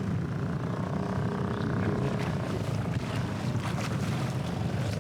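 Small boat's outboard motor running steadily at low speed as it comes alongside, with wind noise on the microphone.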